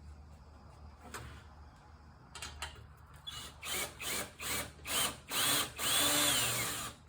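Power drill/driver run in a string of short bursts that grow longer and louder, the motor whine rising and dropping with each one, as it tries to drive a 5/16 screw that will not catch; the owner suspects the screw is stripped.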